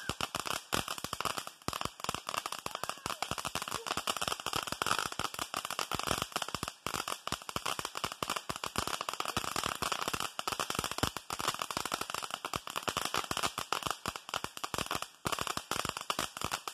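Ground fountain firework spraying sparks, crackling with a dense, rapid stream of pops over a steady hiss.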